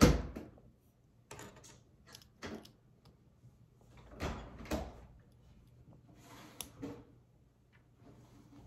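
Plastic Lego pieces being handled and snapped together: a sharp knock at the start, then scattered light clicks and rattles.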